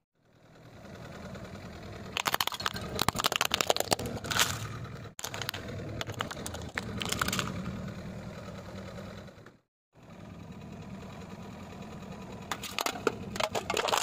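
Car tyres rolling over and crushing brittle plastic toys, with bouts of sharp cracking and snapping over the low hum of the car's engine running. Brief silences break the bouts.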